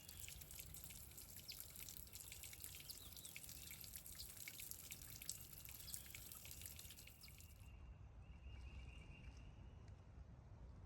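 Near silence, with faint, irregular water drips for most of the first seven or so seconds.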